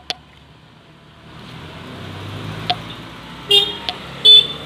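A motor vehicle passing on a small road, its engine hum building from about a second in, then two short horn toots under a second apart near the end, the second the loudest.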